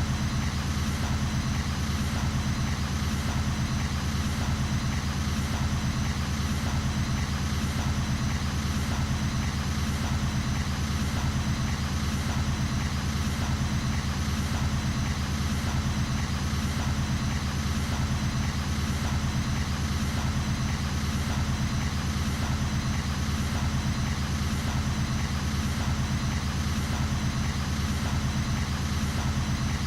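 An engine running steadily at idle, a constant low hum with a faint high whine, unchanging throughout.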